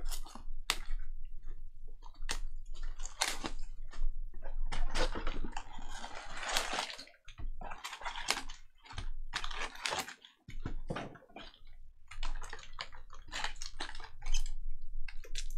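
A jumbo pack of baseball cards being opened and its cards handled: a run of crinkles and clicks from the wrapper and the card stock, thickest about five to seven seconds in.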